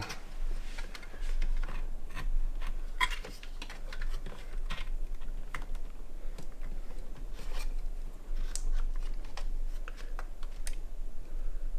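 Irregular clicks, taps and light scraping of metal and plastic PC components being handled and forced together while a part is worked into a very tight small-form-factor case. A steady low hum runs underneath.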